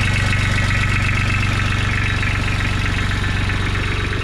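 Kubota B1700HD's three-cylinder diesel engine idling steadily.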